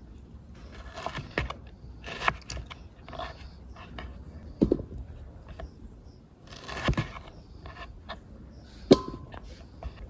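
A crinkle-cut knife chopping through soft peach flesh onto a wooden cutting board: irregular soft crunches with a knock of the blade on the board, about one every second or so, and a sharper knock near the end.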